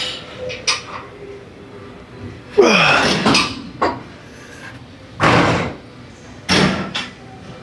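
A lifter's forceful breaths and a grunt, a few short blasts spaced one to two seconds apart, while straining through a set of heavy 45-lb dumbbell curls. A couple of short clicks come from the weights.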